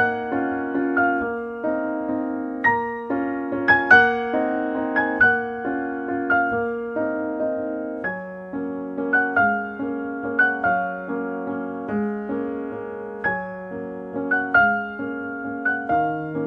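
Solo piano music: a gentle repeating pattern of notes over held bass notes, with a change of chord about halfway through.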